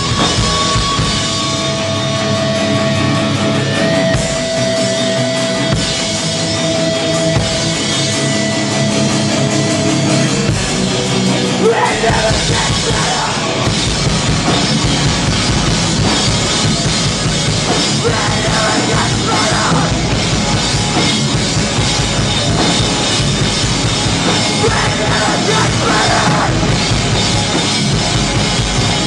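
Hardcore band playing live: distorted guitars, bass and drums, with vocals coming in now and then. About twelve seconds in, the heavy low end of bass and kick drum joins the held guitar notes and the full band drives on.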